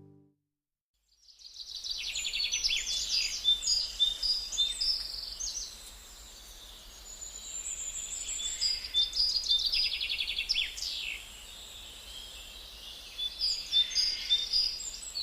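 Birds singing: spells of rapid, high-pitched chirps and trills. They start after about a second of silence and pause twice briefly.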